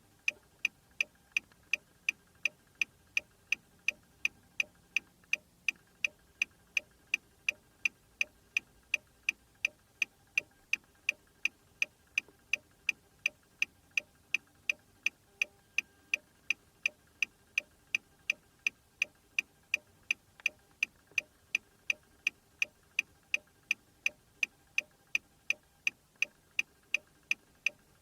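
Car hazard-light flasher clicking: an even, steady run of sharp ticks, about two to three a second, as the lights blink on and off.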